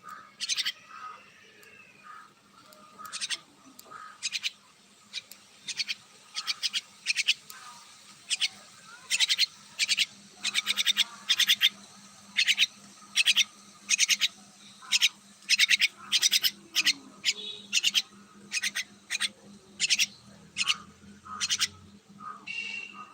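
Common myna (shalik) calling: a long run of short, harsh calls repeating about one to two times a second.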